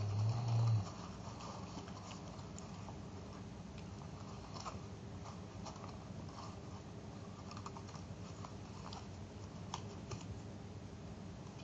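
Folded paper being handled: faint rustling with scattered small crisp clicks as the pleated paper is pressed and shifted, over a steady low hum. A short low rumble in the first second is the loudest sound.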